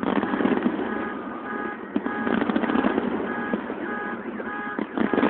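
Distant fireworks bangs over a rough background rumble, a few sharp ones about two seconds in and near the end. An electronic alarm beeps over it about twice a second, each short beep sounding several pitches at once.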